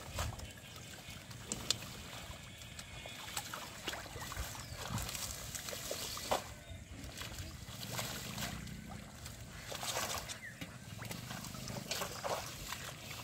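Irregular splashing and sloshing of shallow muddy water, with rustling of water-hyacinth leaves, as hands grope through the mud and plants for fish.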